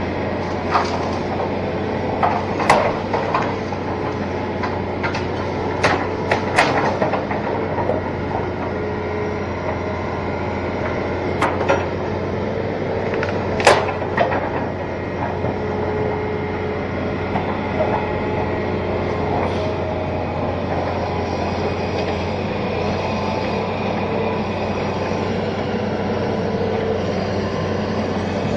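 Diesel engine of a Hitachi Zaxis 210 amphibious excavator running steadily, broken by a few sharp knocks, several in the first seven seconds and two more around the middle.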